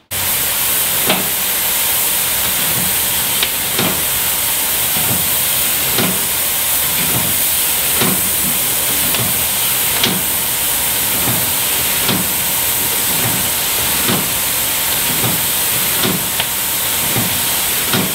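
Steam hissing steadily as it vents from the pipework above a Cornish boiler in steam, with faint knocks repeating about once a second underneath.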